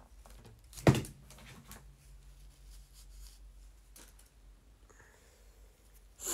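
A single sharp knock or bump about a second in, the loudest sound, with a faint low hum trailing briefly after it. Otherwise quiet room tone, with a short noise near the end.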